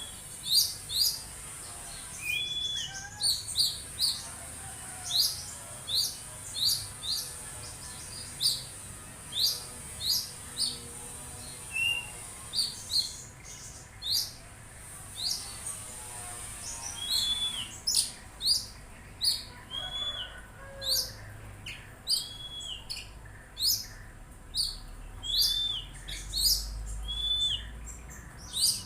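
Oriental magpie-robin (kacer) calling: a rapid run of short, sharp chirps mixed with repeated arching whistled notes, the whistles coming about every two seconds in the second half. A steady high hiss runs under the first half.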